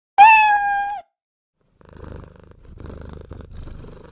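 Domestic cat meowing once, a short loud call that falls slightly in pitch, then purring in three slow swells.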